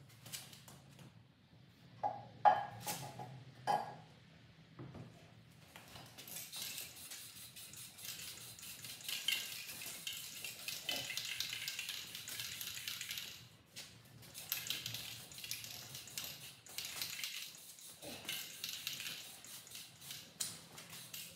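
Aerosol can of matte black spray paint hissing in long bursts, with a brief pause about halfway, as the metal handlebars are painted. A few sharp clinks come in the first few seconds, before the spraying starts.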